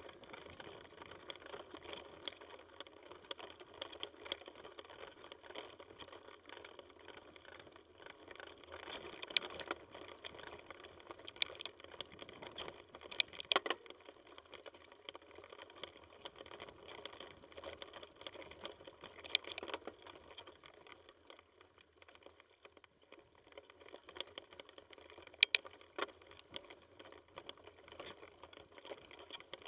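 Mountain bike rolling over a rough dirt and rock trail: a steady rumble of tyre and ride noise, broken by several sharp, loud knocks and clacks as the bike jolts over roots and stones.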